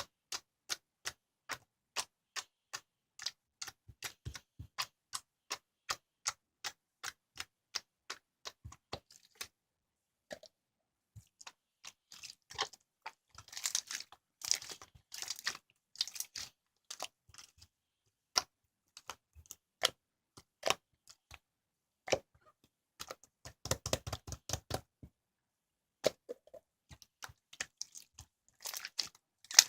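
Slime mixed with lavender petals being pressed and poked by hand, giving sticky clicks and small air-bubble pops. The clicks come evenly, about two a second, at first, then turn into denser crackly runs after a short pause.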